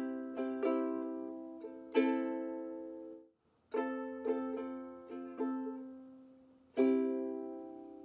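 Ukulele strummed in a short rhythmic strum pattern, played twice with a brief stop between, each time a few quick strums leading to a loud final chord left ringing.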